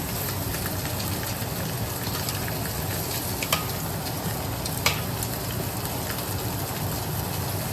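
Oxtail pieces searing in hot oil in a pan, a steady sizzle, with two sharp clicks about three and a half and five seconds in.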